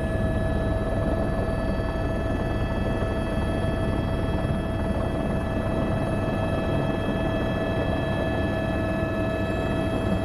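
Helicopter in flight: steady rotor and engine noise with a constant high tone above it.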